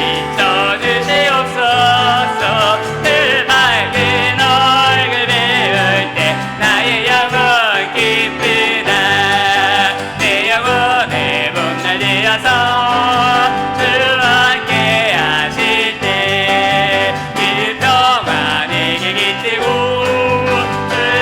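Church praise band playing a hymn, with piano and bass under a sustained melody line.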